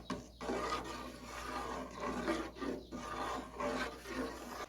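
A spoon scraping and rubbing around the bottom of a pot as thickening canjica (sweet corn pudding) is stirred continuously, in uneven repeated strokes.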